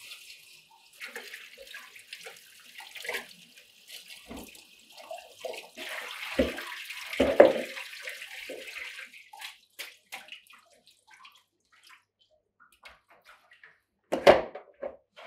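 Kitchen tap running into a steel sink as raw chicken pieces are rinsed in a plastic colander, with scattered rustling and handling clicks; the water runs strongest from about six to nine seconds in. Near the end a single loud knock as the plastic colander is set down into a second plastic colander.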